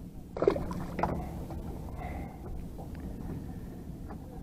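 A small fluke (summer flounder) released from the hook and hitting the sea surface with a splash about half a second in, with a smaller splash or slap about a second in, over steady wind and lapping water.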